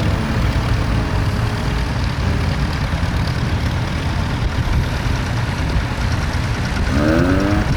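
Tractor engine running steadily with a deep rumble. A rising pitched sound comes in near the end.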